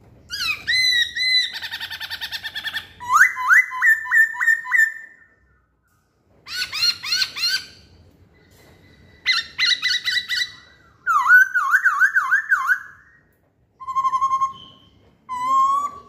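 Black-throated laughingthrush (poksay Hongkong) singing loud, varied whistled phrases, about seven in a row with short pauses between them. Several phrases are runs of quickly repeated rising or swooping notes.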